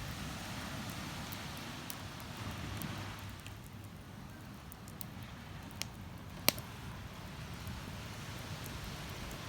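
Wood bonfire crackling, with scattered small pops and one sharp pop about six and a half seconds in, over the steady wash and rumble of ocean waves on the shore.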